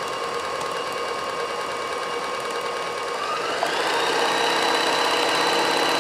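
Kenmore 158.1040 sewing machine running with a cutwork needle and no thread, so only the motor is heard and no bobbin noise. Its steady hum rises in pitch about three seconds in as the machine speeds up.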